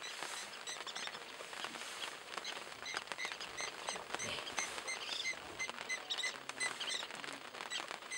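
Short, high chirping calls repeating a few times a second over a dense patter of faint clicks and crackles.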